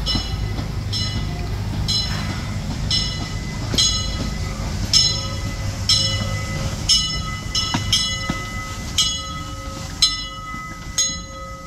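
Steam locomotive E.P. Ripley No. 2, a 4-4-0, ringing its bell about once a second as it pulls into the station. Under the bell is a low rumble of the moving train, which fades about eight seconds in as the train comes to a stop.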